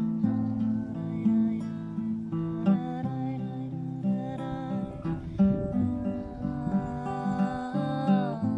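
Gentle acoustic guitar music: plucked notes and chords ringing on, changing every second or so.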